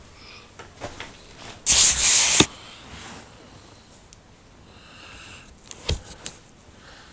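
One loud, hissy breath close to the microphone, lasting under a second, about two seconds in; a few faint clicks follow near the end.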